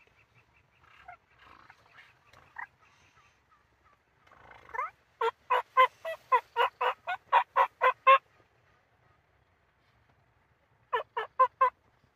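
Turkey yelping: a run of about fourteen loud, evenly spaced yelps, then a short run of four more near the end, after a few faint soft notes.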